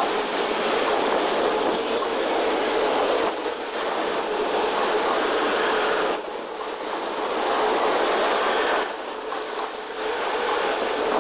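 Freight train of autorack cars rolling past: continuous steel wheel-on-rail noise with squealing, heard in sped-up playback that shifts it higher. The sound eases briefly about three times.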